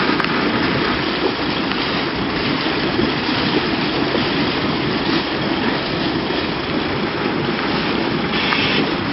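A vehicle driving through deep floodwater, giving a steady rushing wash of churned water mixed with engine noise.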